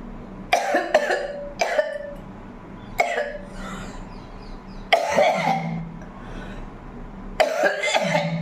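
A woman coughing hard in about five separate fits a second or two apart, some single coughs and some short runs of hacking. The coughing comes from a heavy chest cold.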